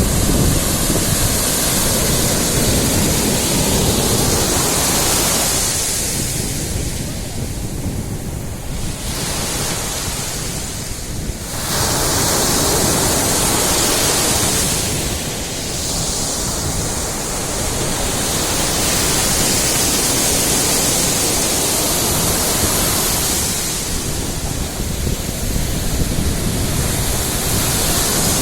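Sea surf washing onto a beach: a continuous rush of breaking waves that swells and eases every several seconds, with wind rumbling on the microphone.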